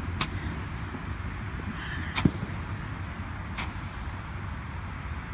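Fireworks going off: three sharp pops about a second and a half apart, the middle one loudest, over a steady low rumble.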